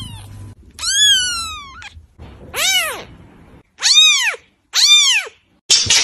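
Young white kitten mewing, about five high cries in a row with short gaps. The first two fall in pitch and the later three rise and fall. A rougher, noisier sound cuts in right at the end.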